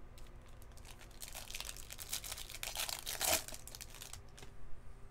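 Foil wrapper of a baseball card pack crinkling and being torn open, a rustle that builds from about a second in, is loudest a little after three seconds, then dies away.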